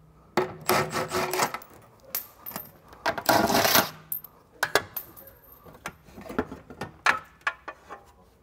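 Cordless power driver spinning out the last bolts of a car's underbody reinforcement plate in a couple of short runs, with metal clinks and scraping as the heavy metal plate comes down and is handled.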